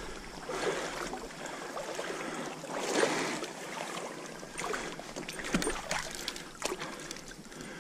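Stream water splashing and sloshing around wading legs and a landing net as a hooked brown trout is brought in and netted, in irregular short bursts.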